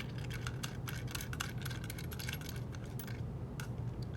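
Rapid, irregular light metallic clicks and clinks of wing nuts being turned on carriage bolts through an acrylic keyboard case, pausing briefly about three seconds in.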